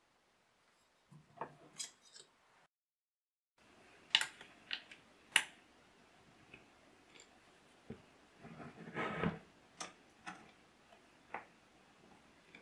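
Scattered small metal clicks and taps of hand work: a screw being turned with a small hand tool and an aluminium bracket being handled against the front of an electric hand planer. The sound drops out completely for about a second early on, and there is a short rustle of handling in the second half.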